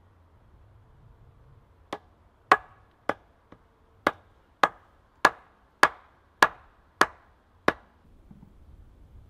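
Top of an upright wooden post struck repeatedly to drive it home: about eleven sharp wooden knocks, a little under two a second, starting about two seconds in and stopping shortly before the end.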